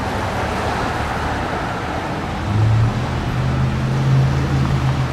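Road traffic: a steady hiss of passing cars with a low engine hum that grows louder about two and a half seconds in, as a vehicle goes by.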